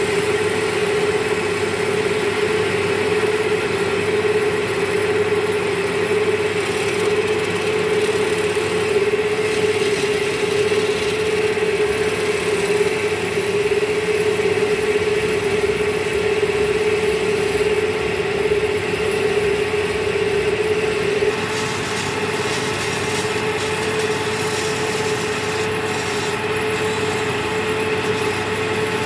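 Wood lathe running with a steady motor hum while a hand chisel cuts into the spinning wooden table leg, the cutting a continuous scraping hiss over the hum. The sound drops a little about two-thirds of the way through.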